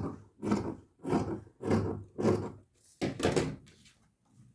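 Fabric scissors cutting through folded cotton tricoline in about six snips, roughly two a second, stopping shortly before the end.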